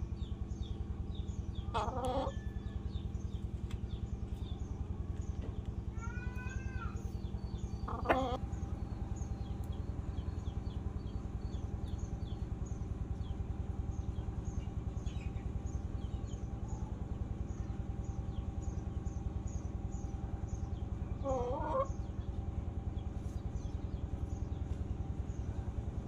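Chickens clucking now and then: a few short calls about two, seven, eight and twenty-one seconds in, the one at eight seconds the loudest. Underneath are a steady low rhythmic hum and faint, repeated high chirps.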